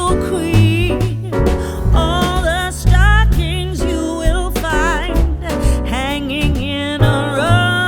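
Background music: a song with a lead vocal singing over bass and a steady beat.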